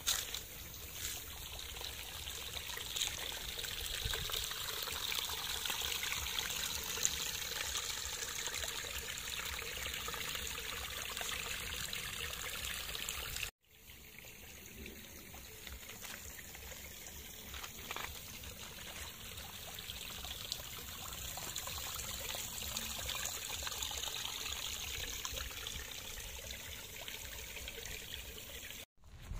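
Water trickling and splashing steadily. The sound cuts out abruptly for a moment about halfway through and again near the end, then resumes.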